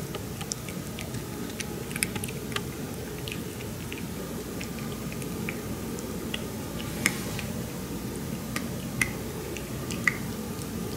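Maltese puppy crunching dry kibble, lying down as it eats: irregular, scattered sharp crunches with a few louder ones, over a steady low background hum.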